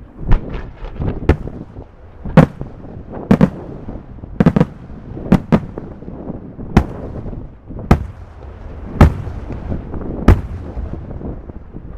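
Fireworks shells bursting in a display: about a dozen sharp bangs at uneven intervals, roughly one a second, some in quick pairs, over a steady low rumble.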